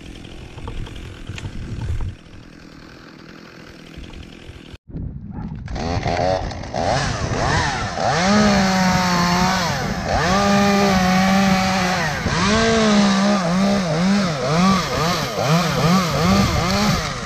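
Chainsaw running at high revs, its pitch dipping and rising again and again as it bites into wood, starting about six seconds in after a quieter stretch and a brief cut-out.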